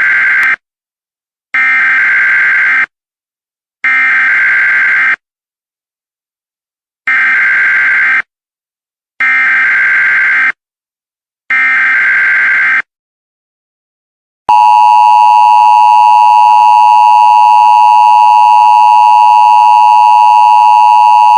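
Emergency Alert System message opening: six short, loud warbling digital data bursts (SAME header tones), in two groups of three about a second apart. From about 14 seconds in, the steady, harsh two-tone EAS attention signal takes over.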